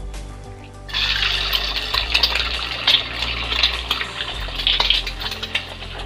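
An egg dropped into hot oil in a kadhai, sizzling and crackling from about a second in.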